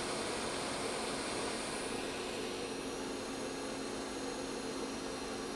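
JBC hot air rework station blowing hot air at 320 °C and 40% airflow onto a display FPC connector to desolder it: a steady rushing hiss, its highest part easing off slightly about two seconds in.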